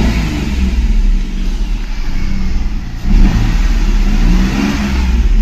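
Renault Kwid's three-cylinder petrol engine revved in neutral, the revs rising and falling, with a sharper rise about three seconds in. Just after a fuel pump replacement, it runs smoothly enough that the owner hears no issue.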